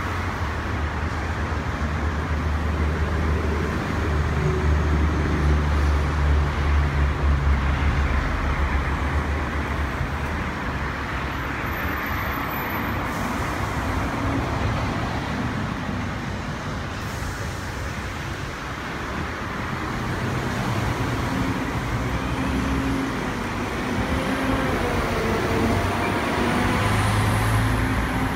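Continuous engine and traffic rumble from motor vehicles. A heavier low rumble swells and passes a few seconds in. Near the end another engine builds, with a faint high whine over it.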